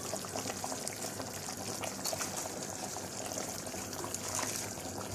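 A pot of beef and potato stew boiling: a steady bubbling hiss with small irregular pops.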